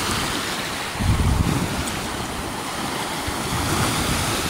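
Lake waves washing onto a sandy shore, with wind on the microphone; a louder low rumble of wind buffeting about a second in.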